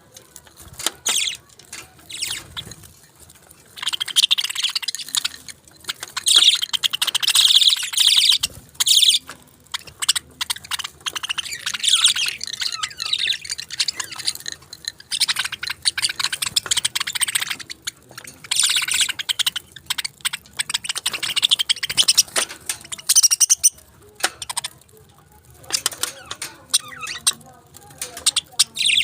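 Pet parakeets chirping and chattering in quick, high-pitched runs, coming in stretches of a few seconds with short lulls between.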